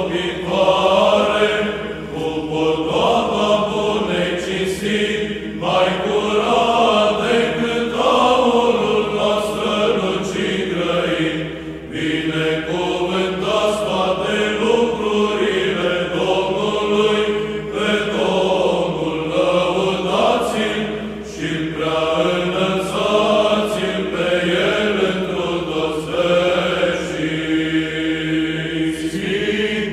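Eastern Orthodox liturgical chant, sung without a break in long, slowly gliding phrases.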